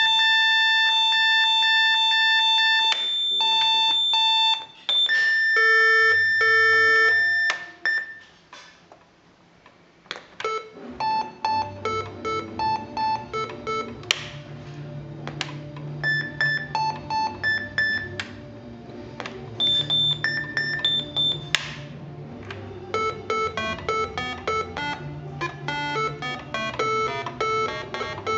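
Russian electronic keyboard playing a bright, beeping electronic tone: a held note, then short notes and chords that stop about eight seconds in. About eleven seconds in a rhythmic pattern of low bass notes and short chords starts, with played notes over it.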